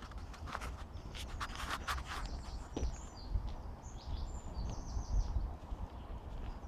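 Footsteps crunching on a gravel towpath during the first two seconds or so, then small birds chirping briefly in short high notes, over a low steady rumble.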